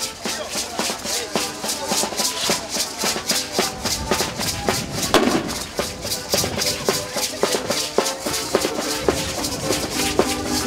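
Music with rattles shaken in a steady, fast rhythm of about four to five strokes a second, over a drum and a tune played in short notes on a pitched instrument.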